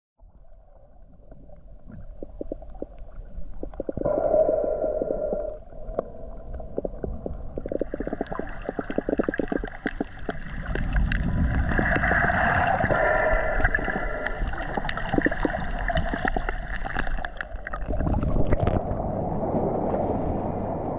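Underwater sound picked up by a camera while snorkeling: water gurgling and rumbling, with sharp crackling clicks and several steady humming tones. About 18 seconds in the camera breaks the surface, and the sound changes suddenly to water sloshing around it.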